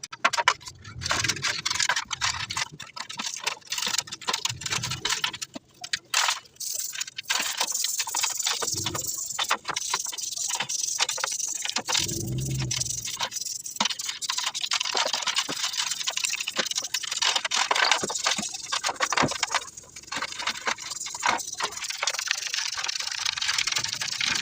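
Continuous scratchy scrubbing with rattling and clicking of small metal parts as caked dirt is cleaned off an alternator's diodes.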